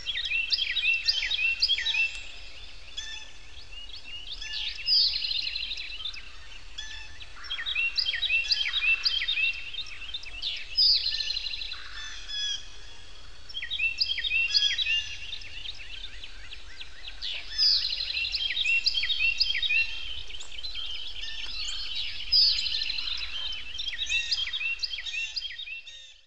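Birds chirping and singing together, with many quick high notes and short downward sweeps that come in clusters every few seconds, over a faint low hum; it cuts off suddenly at the end.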